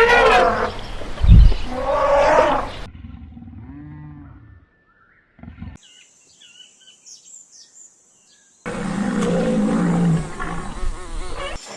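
A run of wild animal calls joined by abrupt cuts: loud roars in the first few seconds, fainter calls and chirps in the middle, then a loud low growling roar from about nine seconds in.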